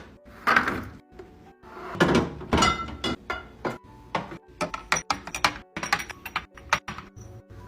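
Food containers and packages being handled and set down while restocking: two louder handling clatters, then a quick run of small knocks and clicks, over quiet background music.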